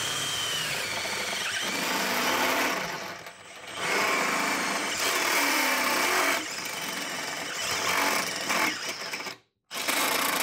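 Makita right-angle drill with a step bit cutting through a sheet of steel, the motor whining and the bit grinding as it bites and the whine drops in pitch under load. It eases off briefly about three seconds in, runs on as the step bit pushes through, and stops near the end with one short last burst.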